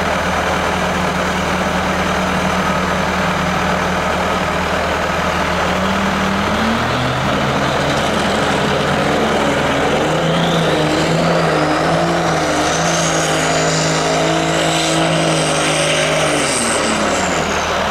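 Modified pulling tractor's engine running at a fast idle, then revving up from about six seconds in with its pitch wavering. A high whine climbs over several seconds and falls away as the revs drop near the end.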